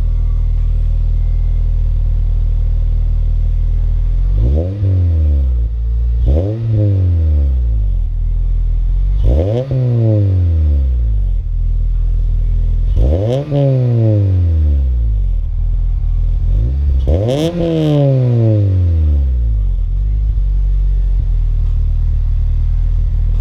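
Honda Civic Si FA5 sedan's 2.0-litre four-cylinder idling through an Invidia Q300 cat-back exhaust with a large muffler, heard at the tailpipe. Five quick throttle blips, climbing from about 3,000 to 5,000 rpm, each falling back to a steady idle.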